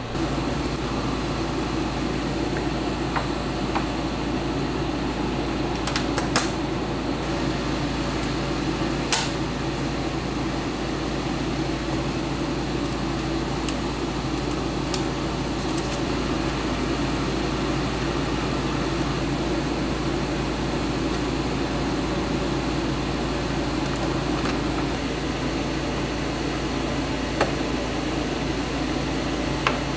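A fan's steady whirring hum, with a few faint clicks now and then.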